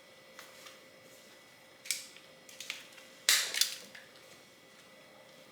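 A few sharp clicks and knocks of objects being handled and set down, the loudest a quick double knock a little past the middle.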